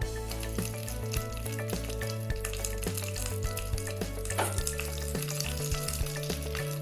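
Mustard seeds and dals sizzling and crackling in hot oil in a small steel pan, a South Indian tempering, with many small pops. Curry leaves and dried red chillies go into the oil partway through and sizzle with the rest.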